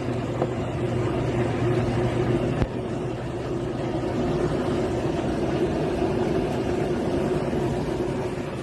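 A 1/2 HP submersible sump pump running steadily with an even motor hum. A single sharp knock comes about two and a half seconds in.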